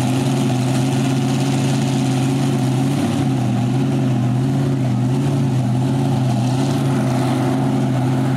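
Supercharged engine of a modified pulling tractor idling steadily, its pitch wavering only slightly.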